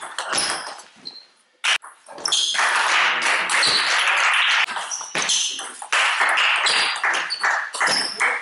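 Table tennis rally: the ball clicking sharply off bats and table in the first couple of seconds, then several seconds of loud shouting in the hall.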